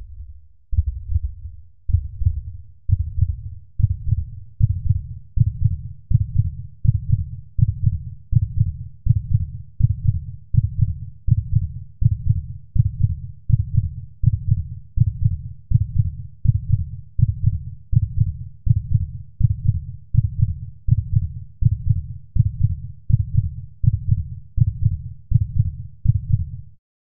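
Heartbeat sound effect: deep, regular thumps that quicken over the first couple of seconds, then hold at about two beats a second and cut off suddenly near the end.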